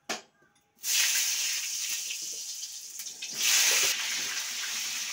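Cut potato pieces dropped into hot oil in a pan on a gas stove and frying with a loud sizzle. The sizzle starts about a second in and swells again about three and a half seconds in.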